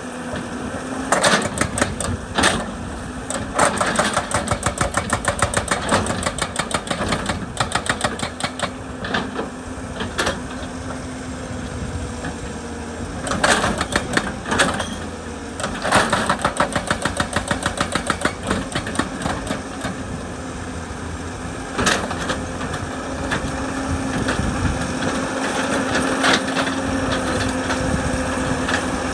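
Excavator diesel engine running steadily, with repeated bursts of rapid, even hammering from a hydraulic rock breaker striking stone, each burst lasting a few seconds.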